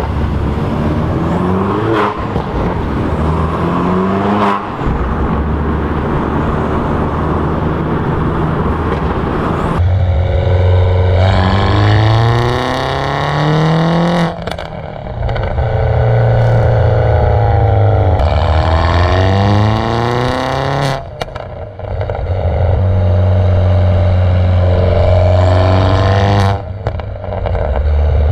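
Mini Cooper JCW R56's 1.6-litre turbocharged four-cylinder through a decatted, non-resonated exhaust, accelerating through the gears: the engine note rises in pitch, then drops sharply at each shift or lift-off, with short cracks from the exhaust as the throttle closes. It is heard first from inside the cabin, then, from about ten seconds in, close at the twin tailpipes.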